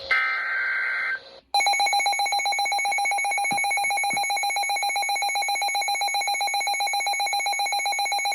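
Emergency Alert System broadcast alert. First comes a second-long burst of warbling data tones, the end of the encoded alert header. After a brief gap, a loud electronic attention tone follows, buzzing with a rapid pulse.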